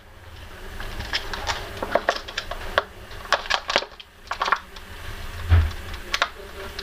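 A series of irregular sharp clicks and taps, a dozen or more, over a faint low rumble.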